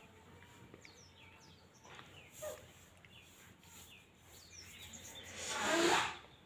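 Faint short chirps of small birds in the background, a few falling high notes in ones and twos. Near the end a louder noisy sound swells up and cuts off.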